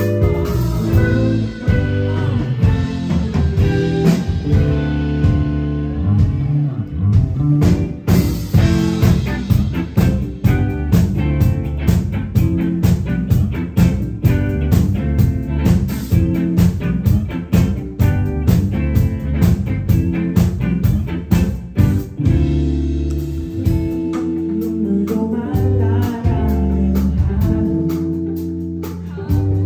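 A live rock band playing with electric guitar, bass and a steady drum beat. About two-thirds of the way through the drums thin out, leaving held chords.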